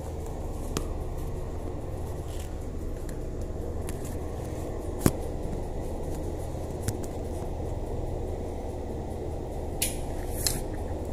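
A few short, sharp metallic clicks from a screwdriver working at a shower valve fitting, the loudest about halfway and two close together near the end, over a steady low hum.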